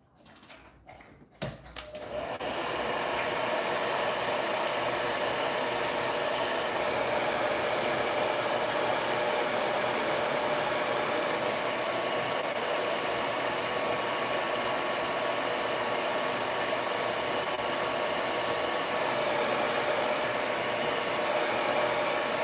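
Hair dryer starting with a click about a second and a half in, then blowing steadily, a rush with a faint whine, to dry freshly applied paint.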